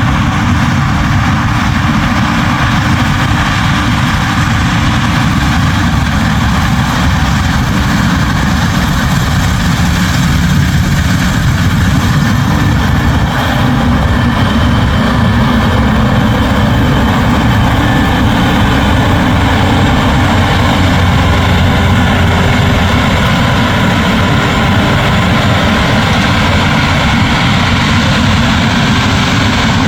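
New Holland CR10.90 combine harvester running steadily while threshing barley, with a deep, even engine and machinery drone.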